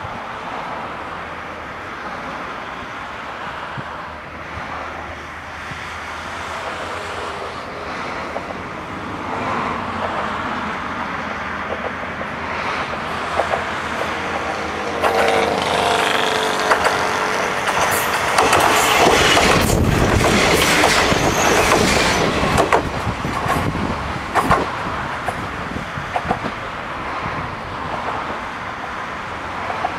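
KiHa 40 diesel railcar approaching and passing close by. Its engine and wheel noise builds to a peak about two-thirds of the way through, with a run of sharp clicks from the wheels on the rails as it goes by, then falls away. Cars on the adjacent road add a steady passing hiss.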